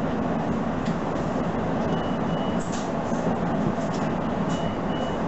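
Running noise of a Nishitetsu electric train heard from inside as it creeps to a stop at the platform: a steady low rumble and hiss. A faint, short, high double beep comes twice, about two and a half seconds apart.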